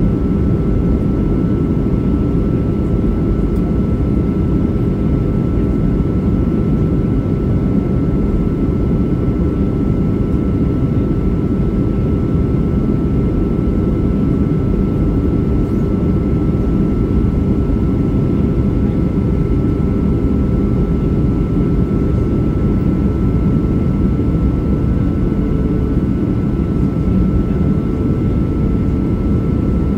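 Steady cabin noise inside a Boeing 737 in flight: a constant rumble of engine and airflow noise, with a faint steady hum over it.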